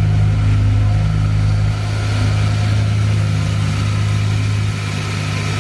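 Audi RS6 C6's twin-turbo V10 idling steadily, freshly started and warming up.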